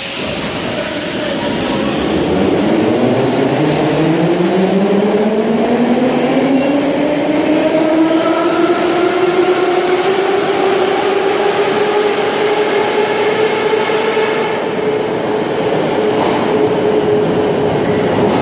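Metro train's traction motors whining as it pulls out of the station: the whine climbs steadily in pitch for about ten seconds, then holds level, over a steady rolling rumble.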